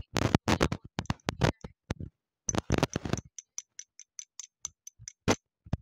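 Hard white chalk-like sticks being bitten and chewed close to the microphone: a run of sharp crunches, then from about three seconds in lighter clicking chews about three a second, with one more loud crunch near the end.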